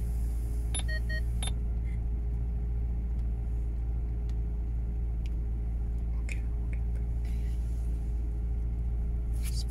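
Maserati GranTurismo engine idling, a steady low rumble heard inside the cabin. A couple of short touchscreen beeps from the head unit about a second in.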